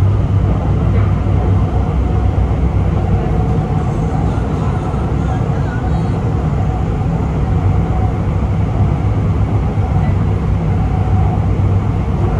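MRT Putrajaya Line metro train running at speed on elevated track, heard from inside the car: a steady, deep rumble of wheels and running gear.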